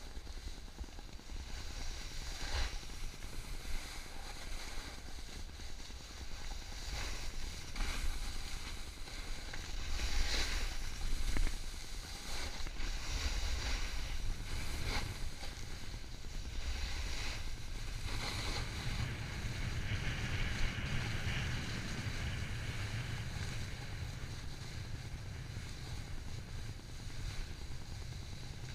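Snowboard base and edges sliding and scraping over firm, tracked snow, with repeated louder scrapes as the edge bites in on turns. Wind rumbles on the microphone throughout.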